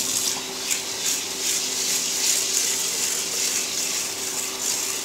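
Kitchen faucet running in a steady stream into a rice cooker's inner pot of rice, filling it with water to rinse the rice. A steady low hum runs underneath.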